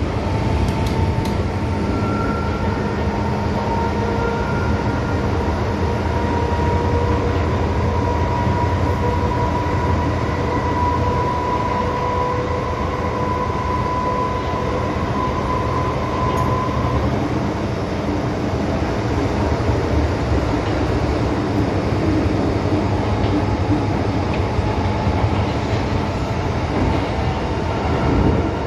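Interior of an MTR M-Train electric metro car running along the line: a steady low rumble of wheels and running noise, with a faint high whine that rises slightly in pitch and stops a little past halfway.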